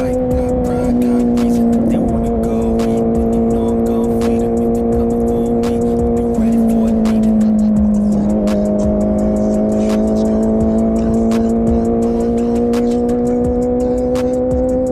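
Honda CBR650R inline-four running through an IXIL full-system exhaust with the dB killer removed, cruising at a steady engine note. The pitch dips briefly about two seconds in and again around eight seconds, then climbs slowly as the bike gathers speed, with scattered short clicks over it.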